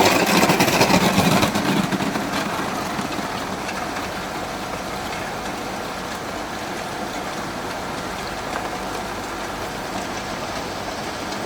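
Cube ice plant machinery running with a steady mechanical noise, a little louder in the first couple of seconds and then even.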